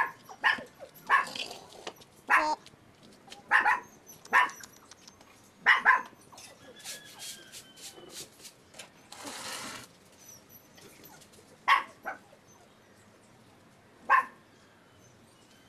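A dog barking: about a dozen short, sharp barks, most of them in the first six seconds and a few more near the end. A brief rustling hiss comes about halfway through.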